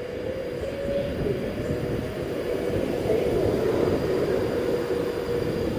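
Class 390 Pendolino electric train pulling out of the station, a steady hum with a held tone over the rumble of wheels, growing louder over the first few seconds.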